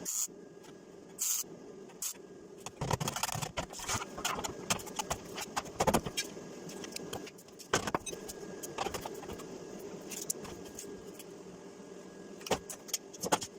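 Irregular metallic clinks, knocks and scrapes of hand tools working on car body metal, over a steady low hum.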